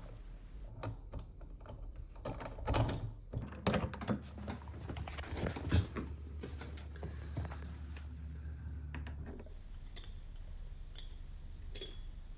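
Metal deadbolt lock parts being handled and pushed into place in a door: irregular clicks and knocks, loudest in the first six seconds, then a few faint ticks.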